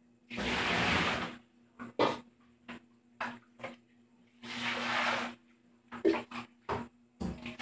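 Dishes being washed by hand: two rushes of water, each about a second long, between sharp clinks and knocks of plates and pans against a metal basin.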